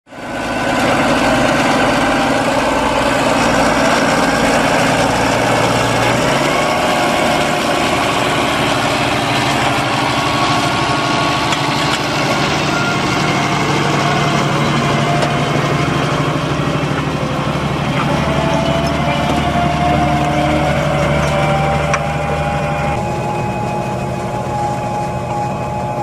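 Deutz-Fahr Agrotron 6165 tractor's six-cylinder diesel engine working steadily under load while ploughing, pulling a three-furrow reversible plough with a furrow press. Its sound changes abruptly about six seconds in and again a few seconds before the end.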